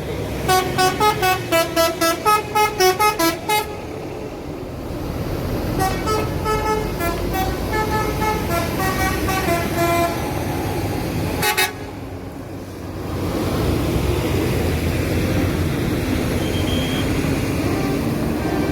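Six-trumpet telolet musical air horn on a bus playing a quick run of short melodic notes, then a second, quieter tune a couple of seconds later. About two-thirds of the way through comes a short loud burst of noise, and after it a steady noise carries on.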